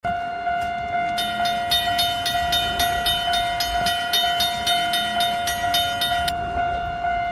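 A train horn holding one long, steady note, with a fast, regular metallic clatter layered over it from about a second in until near the end.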